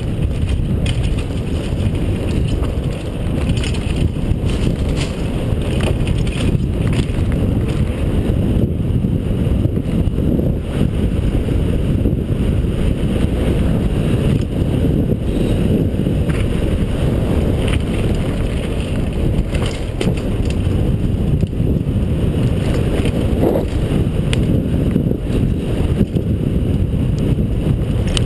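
Wind buffeting a helmet-mounted GoPro's microphone as a Foes DHS downhill mountain bike rolls fast down the trail, with tyre noise and scattered rattles and clicks from the bike.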